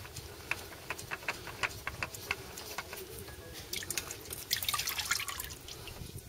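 Oil filter being spun off by a gloved hand, with a few light clicks. Motor oil then spatters and drips as the filter comes loose, about four seconds in.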